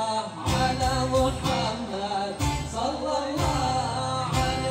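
Music with singing over a steady low beat, about one beat a second.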